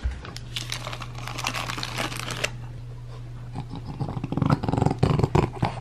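Paper rustling for the first couple of seconds, then a bulldog eating at a metal food bowl, loudest about four to five seconds in, over a steady low hum.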